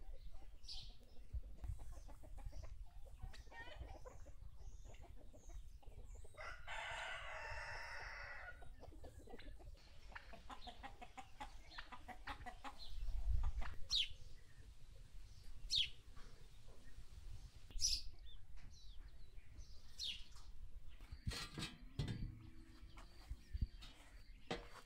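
Chickens: a rooster crows once, about two seconds long, roughly seven seconds in, with clucking and several short sharp high calls scattered through the rest. A dull low thud sounds about halfway through.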